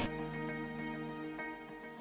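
Soft background music with held tones and a few gentle note changes.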